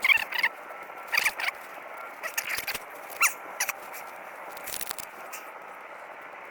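Several short, squeaky metal scrapes and clicks from hand tool work, the sharpest one right at the start.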